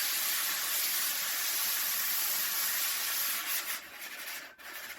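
The foot of a glaze-fired stoneware pot being ground flat on a wet diamond disc spinning on a potter's wheel: a steady, loud gritty hiss that turns uneven with short dips after about three and a half seconds as the pot is eased off.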